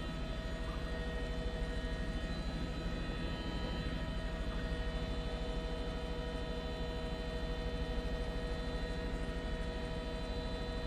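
Helicopter cabin noise: a steady drone of the rotor and engine with a rapid low pulsing and several constant humming tones over it.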